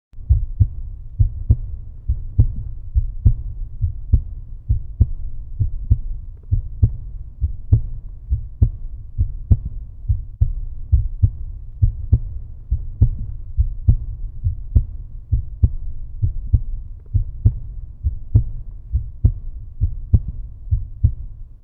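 Heartbeat sound: deep, low thumps in a steady, even rhythm, a little faster than one beat a second.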